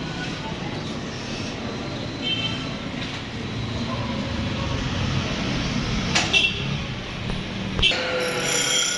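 Steady workshop noise with metal parts clinking and ringing briefly about six seconds in and again near the end.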